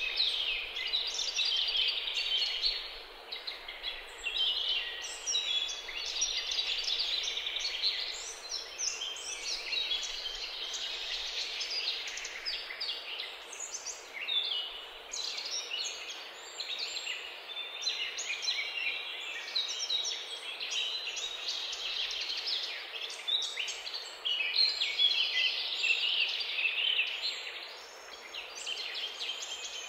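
Many small birds chirping and singing at once, a dense, unbroken run of short high notes.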